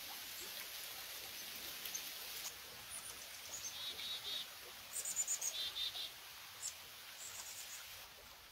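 Small songbirds chirping in short, high calls, some in quick runs of three, coming thicker from about the middle on, over a steady rushing hiss of a stream.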